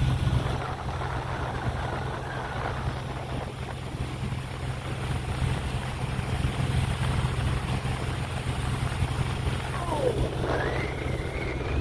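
Motorboat engine running steadily as a low hum under wind and water noise while the boat cruises. Near the end a pitched call glides upward and holds.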